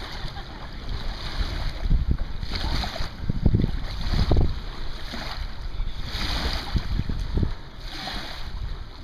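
Small waves lapping and washing at the lakeshore, swelling every second or two, with wind buffeting the microphone in heavy gusts.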